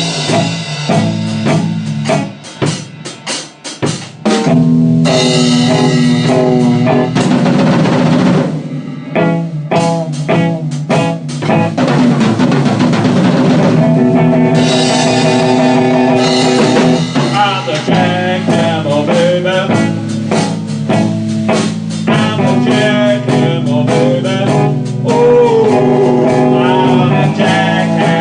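Live blues jam, instrumental stretch: a drum kit keeps a steady beat under electric guitar, with bent guitar notes later on. The band drops out briefly about three seconds in, then comes back in.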